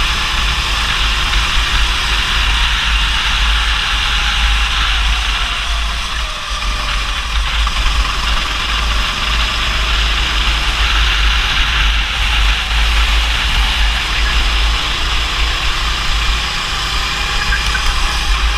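Rental go-kart's engine running on a lap, its pitch dipping and rising with the throttle through the corners, under heavy wind rumble on the onboard camera's microphone.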